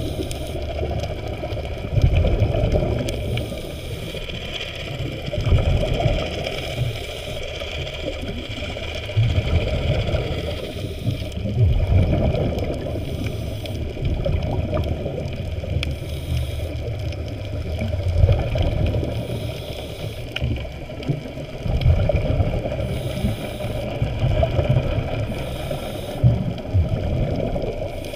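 Muffled underwater sound of a camera moving through seawater: low rumbling surges of water every second or two, over a steady faint high-pitched whine.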